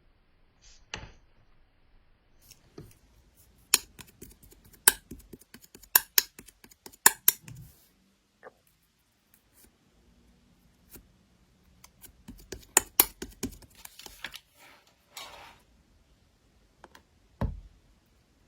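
Sharp clicks and taps of small objects being handled, in two busy runs, with a single low thud near the end.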